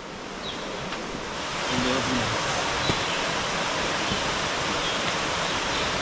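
Rushing water of the Seven Sisters waterfalls, a steady wash of noise that grows louder over the first two seconds and then holds even.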